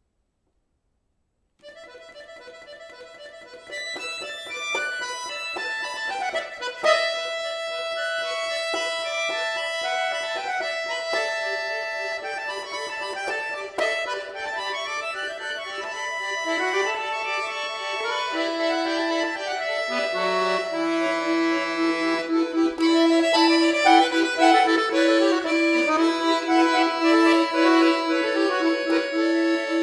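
Solo accordion: after a moment of silence it begins to play about a second and a half in, starting softly and growing steadily louder. Later a long low note is held under moving higher lines.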